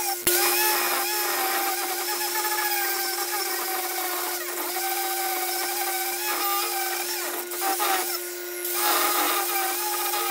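Angle grinder with a wood carving disc running steadily, cutting into walnut as it is worked across the hollow of a dough bowl, the motor's whine under a dense scraping of the wood. The cutting noise eases briefly about eight seconds in.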